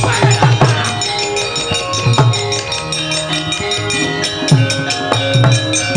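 Javanese gamelan playing: ringing metallophone notes over hand-drum strokes that drop in pitch, about two or three a second.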